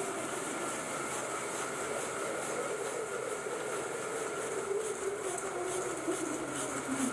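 Match splint chopping machine cutting stacked wood veneer into splints: rapid repeated chopping strokes over a steady machine drone, which drops in pitch near the end.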